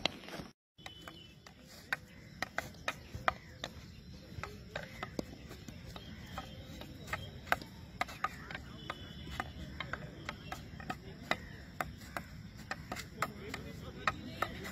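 Field hockey stick tapping a ball in quick, sharp, irregular clicks, a few per second, as the ball is dribbled close at the player's feet. The sound cuts out completely for a moment about half a second in.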